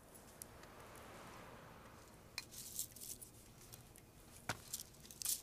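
A few soft clicks and taps of small objects being handled in a quiet room, the clearest about four and a half seconds in and just before the end.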